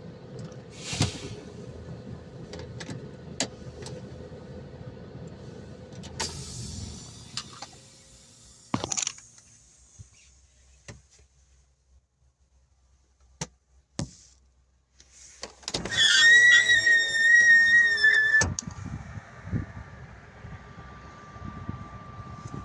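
Truck cab sounds: a low engine rumble for the first eight seconds, ending with a loud knock, then a quiet stretch with scattered clicks. A loud high squeal follows for about two and a half seconds, and the low rumble comes back near the end.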